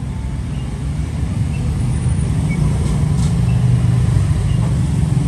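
Low, steady rumble of road traffic, growing a little louder after about two seconds.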